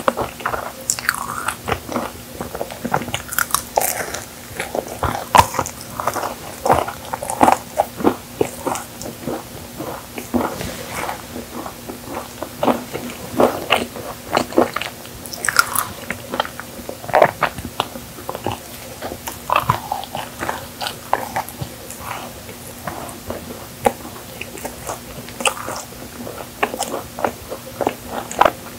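Close-miked biting and chewing of a chocolate-coated marshmallow cookie: irregular sticky, wet mouth sounds with occasional crunches.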